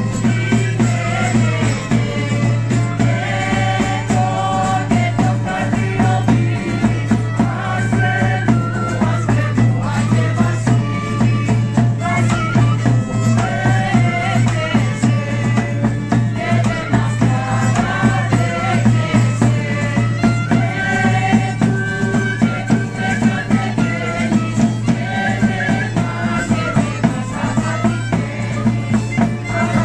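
Parian kalanta (Greek Christmas carols) sung by a small group of voices together, accompanied by violin, acoustic guitar, a frame drum beating a steady rhythm and a triangle.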